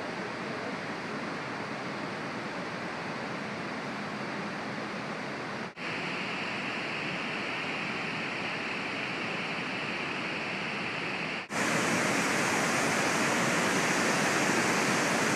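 Steady rush of heavy water pouring over the Croton Dam spillway. It drops out for an instant twice, about six and eleven seconds in, and comes back louder and brighter each time.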